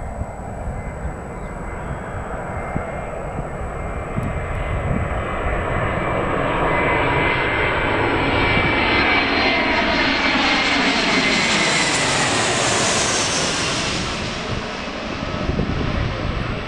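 Airbus A320-family airliner on final approach with its gear down, jet engines passing low overhead. The rumble and hiss build steadily to a peak about twelve seconds in, with whining tones sliding down in pitch as it goes by.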